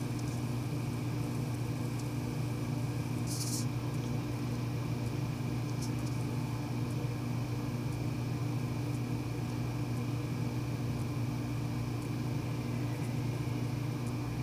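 Steady low hum with a faint high whine above it: background room tone. There is one short hiss about three and a half seconds in.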